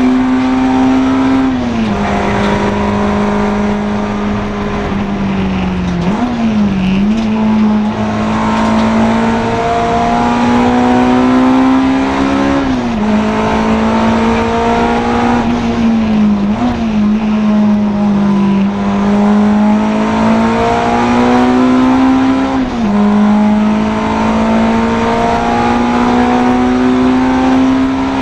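A Honda Integra DC2 race car's four-cylinder engine running hard at high revs. Its pitch climbs slowly along each straight and drops sharply at each gear change, about every four to six seconds, with a quick blip of revs at two of the changes.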